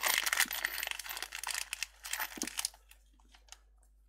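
A small paper sachet of SIM card ejector pins being torn open and handled, giving a dense crinkling, crackling tear for the first two and a half seconds or so, then a few light clicks.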